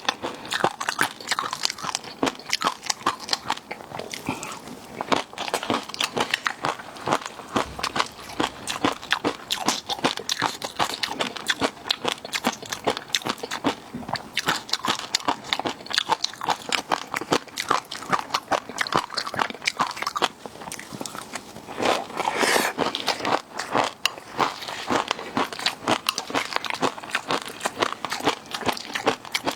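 Close-miked eating of seafood: continuous crunching and chewing, dense rapid crunches with wet mouth clicks.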